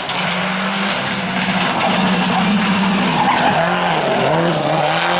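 Rally car engine at high revs with tyre skidding noise; from about three and a half seconds in the revs dip and climb again several times.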